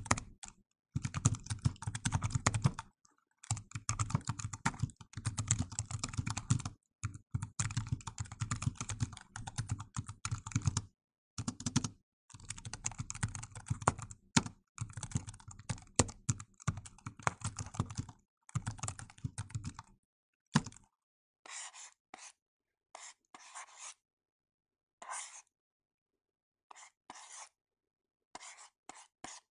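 A string of short, separately edited sound-effect clips of rapid clicking, like keyboard typing, each cut off by a brief dead-silent gap. From about two-thirds of the way in, the clips become shorter, thinner scratchy bursts.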